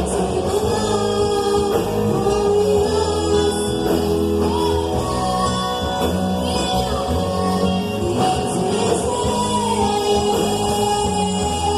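Band music with a singer's voice: sung notes held and bending over a bass line.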